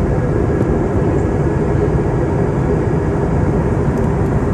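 Steady cabin noise inside an Airbus A321 airliner in flight: the drone of the jet engines and rushing airflow, a low rumble with a few faint held tones over it.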